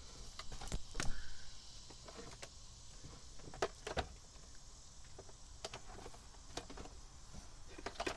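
Scattered light clicks and knocks of hand-handling inside a truck cab, over a steady high hiss.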